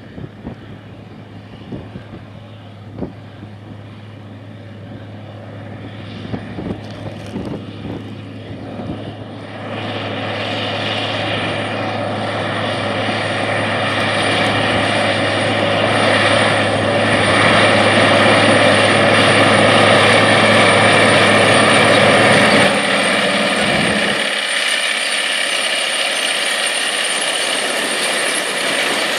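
Caterpillar Challenger 95E track tractor's diesel engine working under load while pulling a vertical tillage tool through the field. It grows much louder from about ten seconds in as the tractor comes close. Near the end the low engine drone drops away, leaving mostly the noise of the tillage tool working the soil.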